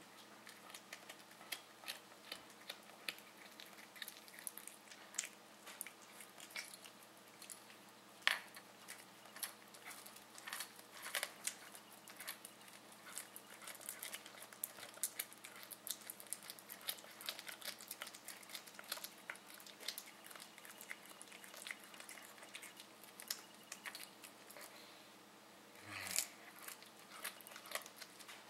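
Siamese cat chewing a meadow vole it has caught: irregular small crunching clicks, several a second, with a short pause a little before the end.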